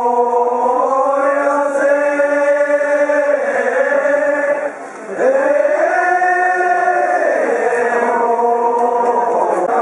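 Male voices chanting in long, drawn-out held notes that slide between pitches, with a short break for breath about five seconds in.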